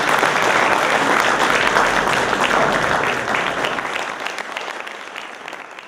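Audience applauding, loud for the first few seconds and then dying away.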